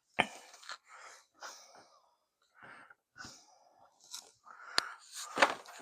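Plastic clicks and rasps of 3D-printed PLA vise parts being handled, with a loose jaw block being dropped into the vise and fitted. A run of short taps and scrapes, with a sharp click just after the start and another about a second from the end.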